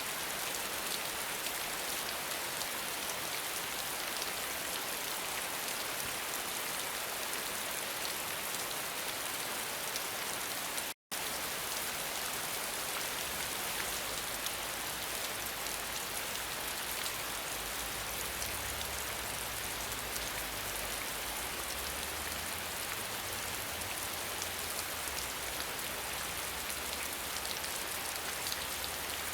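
Steady rain falling, an even hiss of many drops. It cuts out completely for an instant about eleven seconds in.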